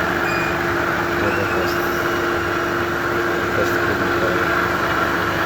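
Mercedes-Benz W211 E200 idling steadily, with a constant hum and no stumble: the misfire is cured after water was cleared from the spark plugs and coils.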